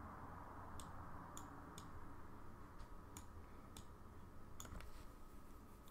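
Faint computer mouse clicks, about eight at irregular intervals, over a low steady room hum.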